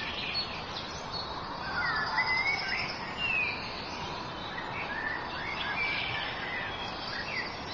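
Small birds chirping and whistling in short, gliding notes over a steady outdoor background hiss.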